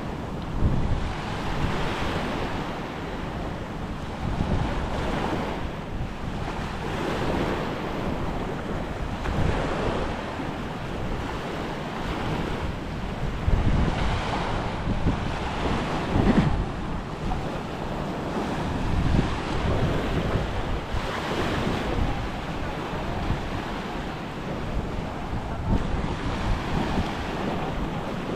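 Small surf breaking and washing up a sand beach, the rush of water swelling and falling back every two to three seconds. Wind buffets the microphone with a low rumble.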